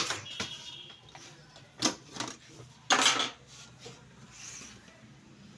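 Hard plastic parts of an HP LaserJet 1020 printer clicking and clattering a few times at uneven intervals, with the loudest clatter about three seconds in.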